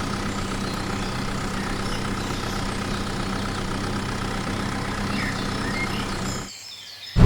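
Steady idling engine hum with an even low drone, with a few faint high chirps over it; it drops away suddenly about six and a half seconds in.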